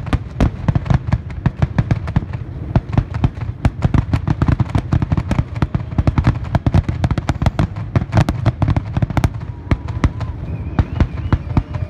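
Fireworks finale: aerial shells bursting in a dense, continuous barrage of sharp bangs, several a second.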